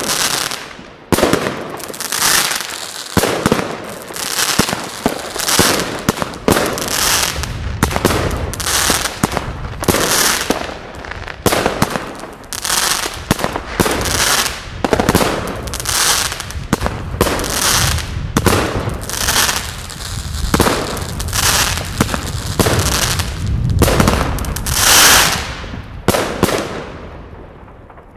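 Consumer firework battery (cake) firing shot after shot, about one a second, each shot a sharp burst with a bright hiss; the last shot fades away near the end.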